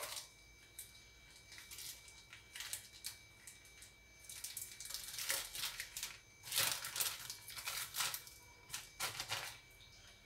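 Plastic packaging crinkling and rustling as it is handled and opened, in irregular bursts that grow busier around the middle and near the end.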